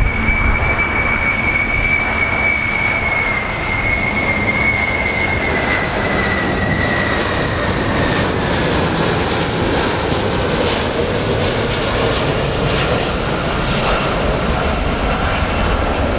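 Boeing VC-25A (747-200) jet on landing approach: the steady rush of its four General Electric CF6 turbofans, with a high engine whine that slides gradually lower in pitch over several seconds.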